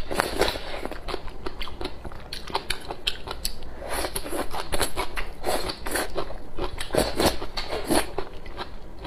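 Close-miked eating sounds: rice porridge scooped from a bowl with chopsticks and chewed along with a green vegetable, a steady run of wet mouth clicks and crackles.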